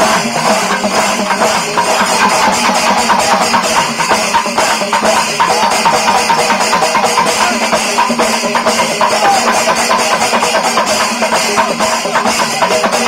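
Music carried by fast, steady drumming, with a few held tones underneath.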